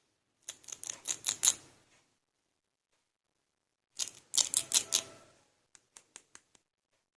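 Small plastic toy pieces clicking and tapping, with two quick runs of six or seven clicks each and a few faint ticks after the second.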